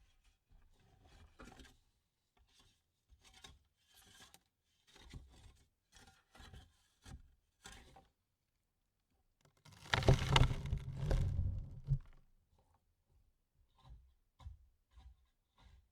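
Dirt and clods falling onto a coffin lid: scattered small patters and trickles, then a heavy shovelful landing about ten seconds in and spilling for around two seconds, then a few last patters.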